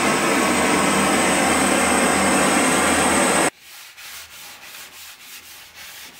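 Handheld gas blowtorch burning with a loud, steady hiss as it scorches a wooden spear shaft. The hiss stops abruptly about three and a half seconds in and gives way to quieter rhythmic rubbing strokes, about three a second, as a hand rubs along the charred wooden shaft.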